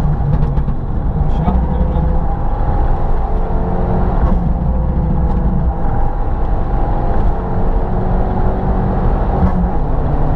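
Modified Abarth 500's turbocharged 1.4 T-Jet engine heard from inside the cabin while driving, running at a fairly steady pitch with road rumble underneath, the note shifting slightly a few times.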